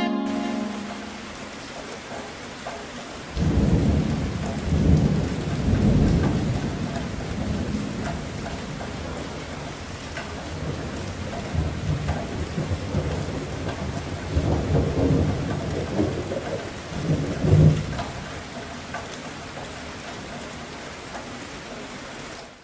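Strong gusty wind buffeting the camera's microphone: an uneven low rumble that comes in suddenly a few seconds in and rises and falls with each gust, with a sharp gust about three-quarters of the way through.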